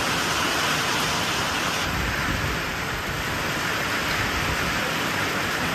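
Heavy monsoon rain pouring steadily onto a waterlogged street, a dense even hiss of drops on water and ground.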